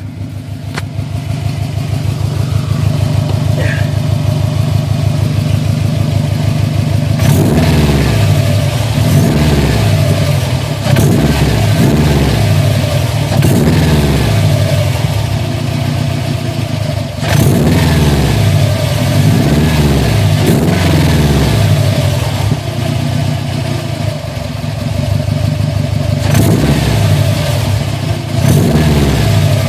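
Subaru STI's turbocharged flat-four engine idling, then revved in a series of short blips from about seven seconds in, each rising and falling back to idle. A steady whine runs under the engine note throughout. The owner is demonstrating an unexplained strange noise from the engine.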